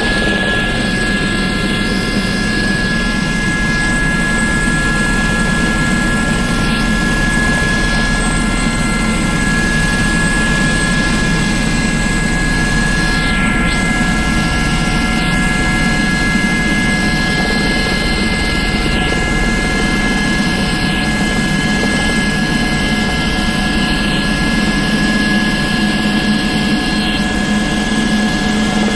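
Aérospatiale SA 341F Gazelle helicopter in flight, heard from inside the cabin: its Turbomeca Astazou turboshaft gives a steady whine with several high tones over the low rotor noise. The level stays even throughout.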